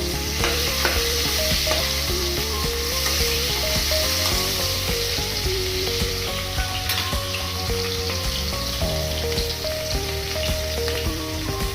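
Onions and dried red chillies sizzling steadily in hot oil in a pan, stirred with a spatula, with small clicks of the spatula against the pan.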